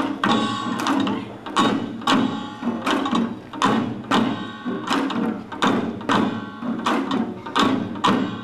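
Korean traditional drums beaten in a steady rhythm of about two sharp strokes a second, with quicker doubled strokes in places, during a drum dance.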